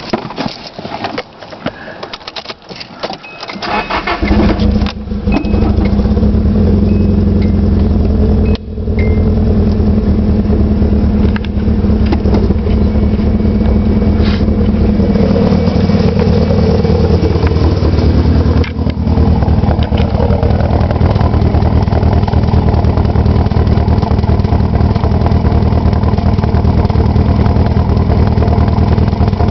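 Nissan SR20DET turbocharged 2.0-litre four-cylinder engine being started: a few seconds of clicking, then it catches about four seconds in and runs steadily. The owner says it misfires and does not know why.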